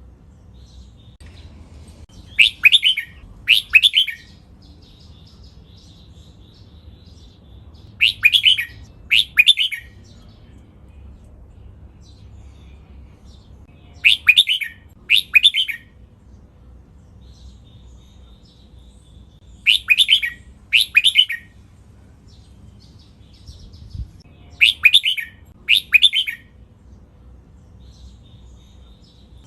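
Red-whiskered bulbul singing. Each loud phrase is given twice in quick succession, in five pairs spaced about six seconds apart, with softer twittering between some pairs.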